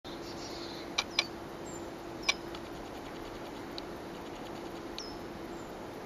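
Wild birds giving a few short, sharp chip calls: three loud ones about a second in, just after, and a little past two seconds, with fainter ones later. Under them runs a steady faint hum and a background hiss.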